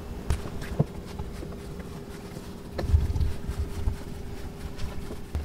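Soft yeasted bread dough being kneaded by hand on a floured granite countertop: dull thumps and slaps, loudest about three seconds in, with a few light knocks near the start.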